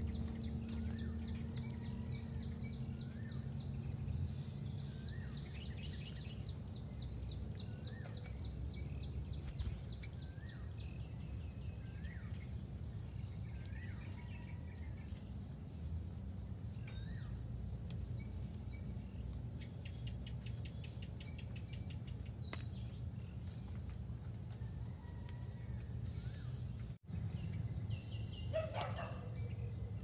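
Birds chirping now and then, short single calls that mostly slide up in pitch, with a quick rattling trill about two-thirds of the way through, over a steady low outdoor rumble. Near the end a louder call sweeps up from low to high.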